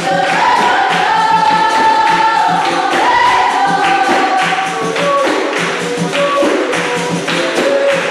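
Capoeira roda music: berimbaus, pandeiro and atabaque drum played in a steady rhythm, with hand clapping and a group singing in chorus.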